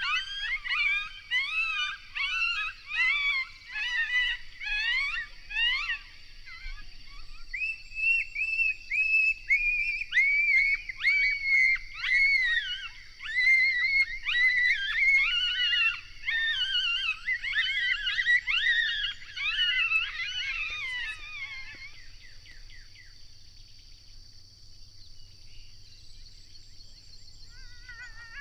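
A group of coyotes howling and yipping in a rapid, overlapping chorus of rising and falling calls that fades out about three-quarters of the way through.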